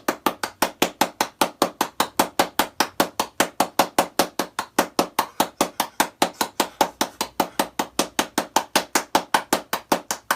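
Rapid, evenly spaced knocking, about five or six sharp knocks a second without a break.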